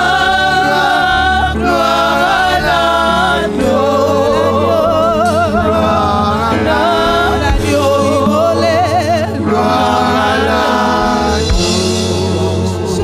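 Women worship singers singing a slow gospel song through microphones, with long wavering held notes over a steady instrumental accompaniment.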